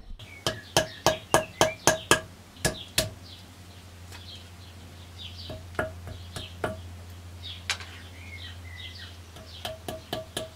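Light taps of a brass hammer on a small screwdriver, seating new hall sensors into the slots of a hub motor's stator. A quick run of about ten ringing taps, roughly four a second, comes first, then a few single taps, then another quick run near the end.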